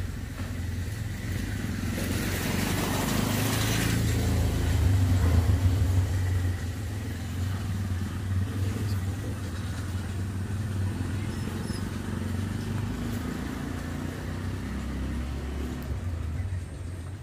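Road traffic: a steady low engine rumble, with a motor vehicle passing close by a few seconds in, louder for a moment and then fading.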